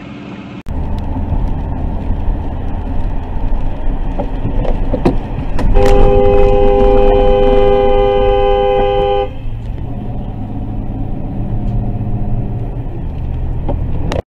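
Steady road and engine noise of a car driving on a highway, heard from inside the car. About six seconds in, a car horn sounds, two notes held together, for about three and a half seconds.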